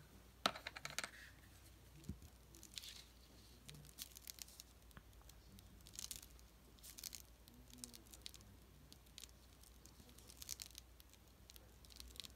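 Faint, scattered rustles and scratches of paper being handled: a paper panel is pressed down and smoothed by hand while a small glue bottle is worked along its edge.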